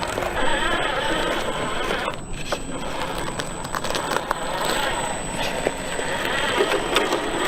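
RC4WD Desert Runner 1/10 scale electric RC truck driving, a steady mix of motor and tyre noise that dips briefly about two seconds in.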